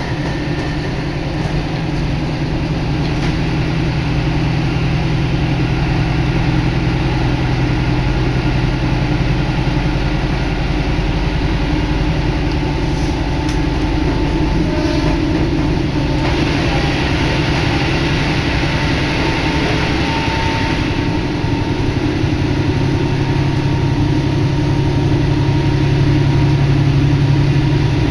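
Diesel railcar running along the line, heard from inside: a steady low engine drone under rail and running noise, with air rushing in through an open window. A stretch of louder hiss comes about halfway through.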